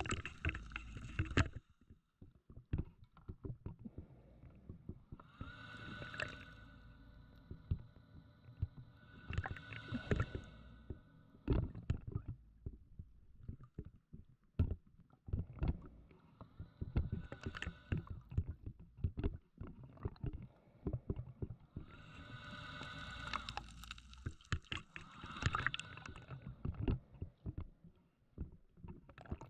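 Scuba regulator breathing heard underwater through the camera housing. Several long hissing inhalations carry a steady whistle, and between them exhaled bubbles crackle and rumble irregularly.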